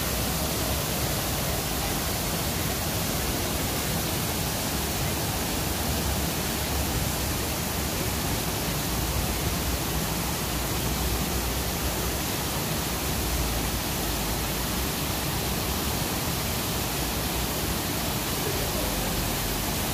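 Waterfall and a small cascade into a pond, a steady rush of falling water at an even level.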